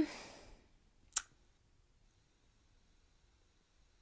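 Near silence, broken by one short, sharp click about a second in.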